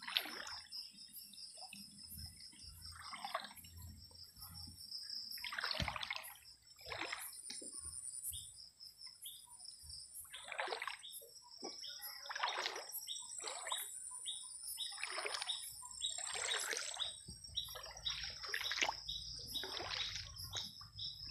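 Shallow water splashing and sloshing in irregular bursts, several every few seconds, stirred by someone wading and groping for crabs. A high, steady chirping runs underneath.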